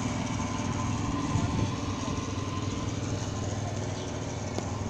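Classic tractor's multi-cylinder engine idling steadily with an even firing beat.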